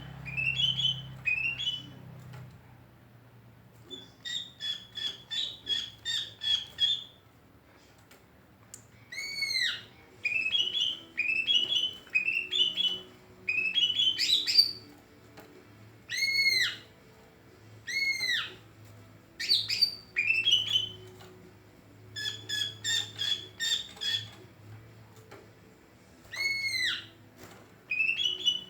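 Cucak ijo (green leafbird) singing in bouts of about a second: fast runs of short rising chirps alternating with high arched whistled notes, with short pauses between phrases.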